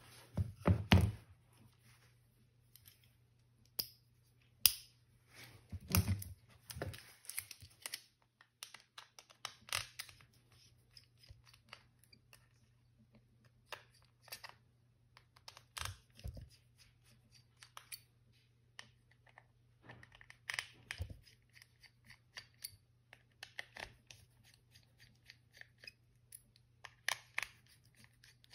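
Small clicks, taps and scrapes at irregular intervals from a Phillips screwdriver and the plastic and metal parts of a General Mobile GM21 smartphone being taken apart, over a faint low steady hum.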